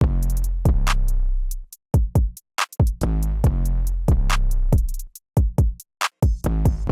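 Electronic music with a drum-machine beat: sharp drum hits, fast hi-hat ticks and long deep bass notes.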